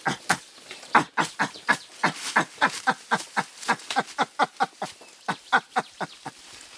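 Young mountain gorillas playing at close range: a rapid run of short, sharp sounds, about four to five a second, that stops shortly before the end.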